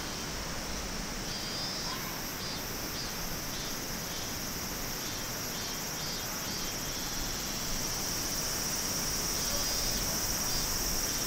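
Summer insect chorus: a steady high-pitched shrill that grows louder over the last few seconds, with short chirps coming and going over a faint even hiss.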